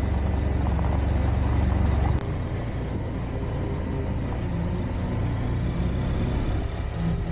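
BMW F750GS parallel-twin engine running under way, heard from the bike with a steady low rumble of engine, wind and road noise. About two seconds in the sound cuts to a slightly quieter stretch of the same ride.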